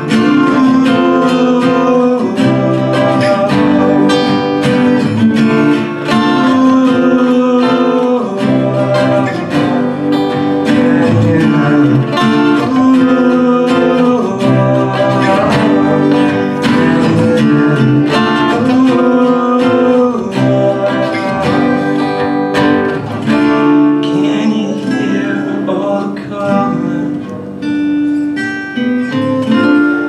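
Two acoustic guitars playing an instrumental passage of a song, chords in a steady repeating pattern.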